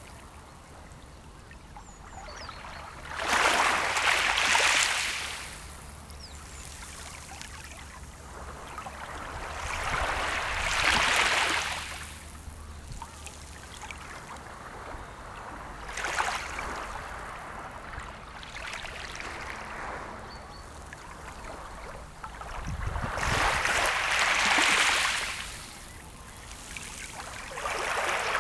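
Small sea waves washing in on a shore, each one swelling up and draining away, one every few seconds, with a softer trickling wash between them.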